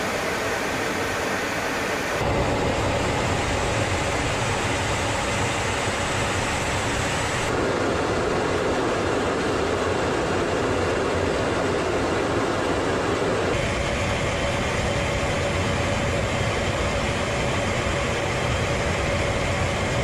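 Steady cabin noise inside a B-52 bomber, the rush of its eight jet engines and airflow. Its tone and level shift abruptly three times, and a faint steady hum runs through the last third.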